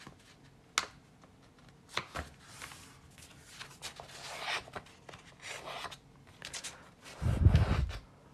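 A sheet of paper being folded and pressed down by hand: intermittent rubbing and rustling with a few sharp ticks. A louder low rumble comes near the end.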